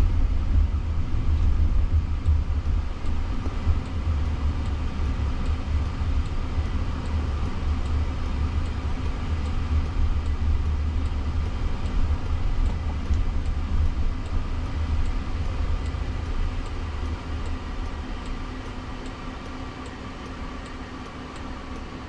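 Low road and tyre rumble heard inside the cabin of a Waymo Jaguar I-Pace electric car as it drives, with no engine note. The rumble fades over the last few seconds as the car slows to pull over.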